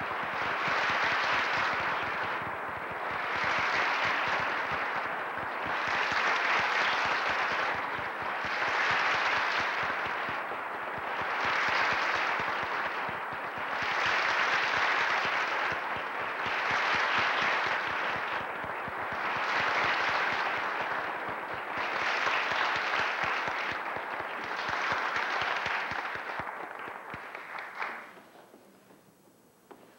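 Theatre audience applauding at the end of a dance, the clapping swelling and easing in waves every few seconds, then dropping away suddenly near the end.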